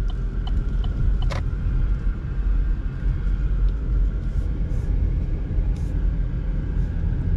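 Inside a car cabin while driving slowly: steady low engine and road rumble. Early on there is a run of regular short ticks that stops with a louder click about a second and a half in.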